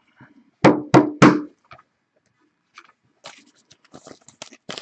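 Three short, loud voiced sounds about a second in. From about three seconds in come soft plastic crinkling and light clicks as a trading card in a clear plastic sleeve is handled.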